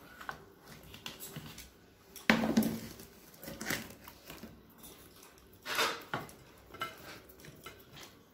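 Plates and bowls clinking and knocking while rice and curry are mixed and eaten by hand, a few separate knocks with the loudest about two seconds in and another near six seconds.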